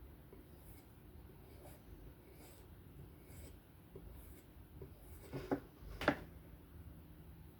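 Knife blade drawn in light, repeated scraping strokes about once a second, typical of edge-finishing strokes on a fine 0.5-micron strop, with two louder scrapes near the end.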